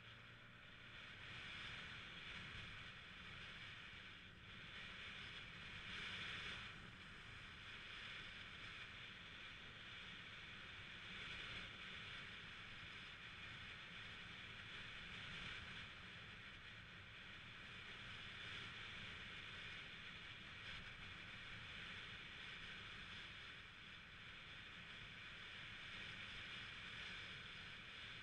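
Faint, steady rush of wind and road noise with the low hum of a Yamaha 125cc scooter riding along at a steady speed.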